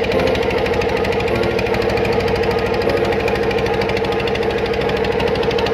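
Small boat engine running close by, a fast, even knocking beat over a steady hum.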